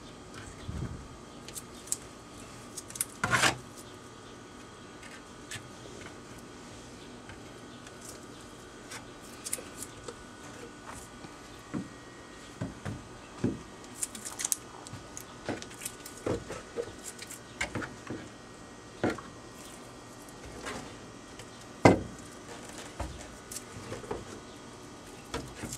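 Scattered scrapes and taps of a notched spreader working thickened epoxy filler into a fiberglass boat hull, with sharper knocks about three seconds in and again near twenty-two seconds.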